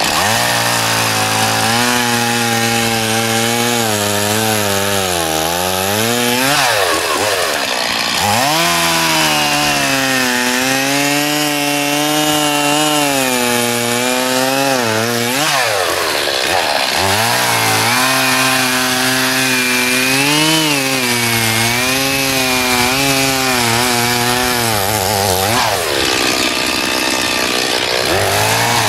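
Stihl two-stroke chainsaw running at full throttle as it cuts down into lake ice. Its pitch sags under the load, then rises sharply three times, about every ten seconds, as the bar eases off.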